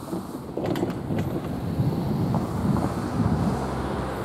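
Wind buffeting the microphone: a loud, uneven low rumble, with a few sharp clicks in the first second or so.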